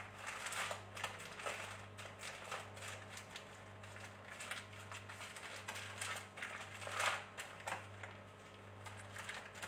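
Knife knocking and cutting on a wooden chopping board, roughly one knock a second, the loudest about seven seconds in, as a sushi roll is sliced.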